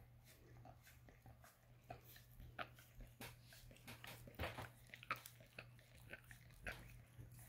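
A dog licking a person's bare toes: an irregular run of faint wet tongue smacks and mouth clicks, busiest in the middle, over a faint steady low hum.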